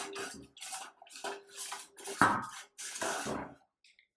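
Small dog eating dry kibble from a stainless steel bowl: irregular crunching, with pellets and muzzle clinking against the metal bowl, stopping shortly before the end.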